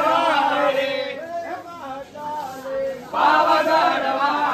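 A group of men chanting a devotional call in unison, in two loud stretches: one fading about a second in, the next starting about three seconds in, with crowd chatter between.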